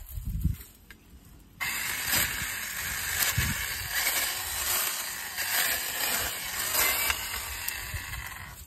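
Battery-powered 6-inch mini chainsaw running and cutting into grass and weeds. It starts suddenly about a second and a half in and runs steadily until just before the end.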